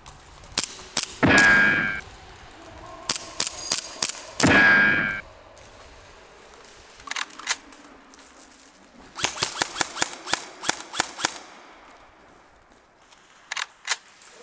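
Airsoft guns firing at close quarters: two short, loud bursts in the first five seconds, then a quick run of about ten shots around ten seconds in, and a couple more shots near the end.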